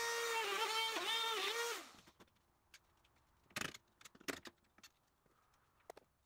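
Handheld electric router running for about two seconds, its pitch sagging briefly several times as the bit bites into the fibreboard, then stopping. A few short knocks and clicks follow.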